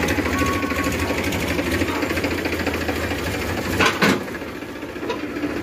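Powertrac Euro 50 tractor's diesel engine running at a steady low speed, with a rapid even chugging. A brief loud noise comes about four seconds in, after which the engine sounds quieter.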